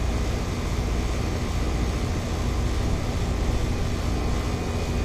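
Ameristar 4-ton air conditioner's outdoor condensing unit running steadily, compressor and condenser fan going, with a steady low hum. It is running normally again on a new 60/5 run capacitor, its current draw settling as it starts to make cold refrigerant.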